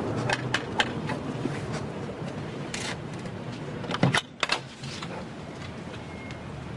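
Metal knocker rapped a few times against a wooden front door, then a louder clunk about four seconds in as the door is unlatched and opened, over a steady low background hum.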